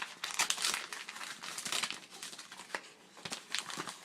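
A mailing package being torn open and crinkled by hand: irregular crackling and rustling with a few sharp clicks.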